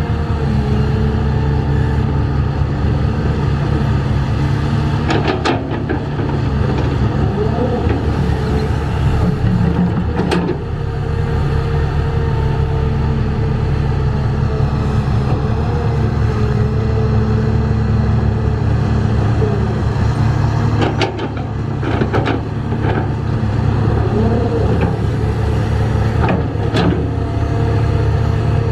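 Heavy construction machine's engine running steadily under load, with a few sharp metallic knocks or clanks scattered through.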